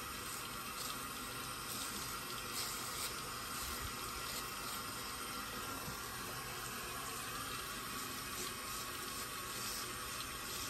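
Steady hiss of a running sink tap, with faint, scattered scrapes of a straight razor through shaving lather.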